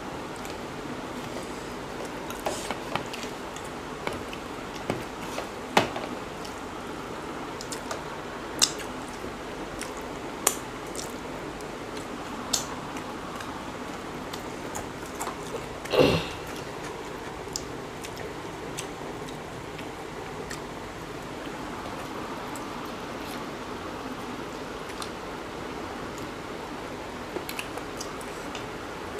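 Close-up eating sounds of two people eating rice and chicken curry by hand: soft chewing, wet mouth and finger sounds and small clicks scattered over a steady background hiss, with one louder knock about sixteen seconds in.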